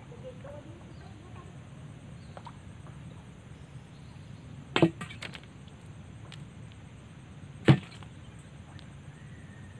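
Two sharp knocks about three seconds apart, the first followed by a couple of lighter clicks, over a low steady hum.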